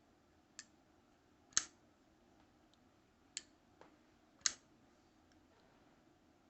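Kershaw folding pocket knife with copper scales being flipped open and snapped shut: a handful of sharp clicks, the loudest about a second and a half in and again about four and a half seconds in.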